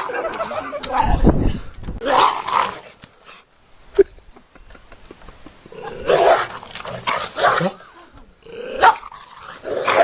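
A dog barking and growling in bursts, with quieter gaps between them and a single sharp knock about four seconds in.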